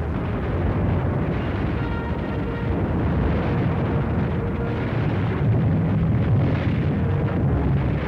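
Air-raid sound effects on an old film soundtrack: a continuous low rumble of bombing and fire, growing a little louder about halfway through.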